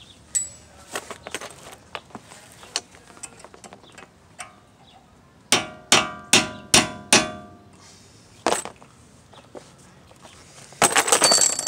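Hammer blows staking a new CV axle nut into the groove on the axle shaft so that the nut can't back out: five sharp, ringing metal strikes in quick succession about halfway through, then one more. A burst of metallic clatter comes near the end.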